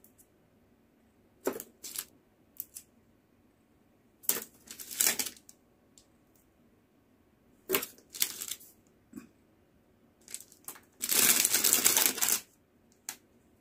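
Clear plastic packet crinkling and rustling in the hands as nail files are slid out of it, in short bursts with a longer, louder rustle near the end.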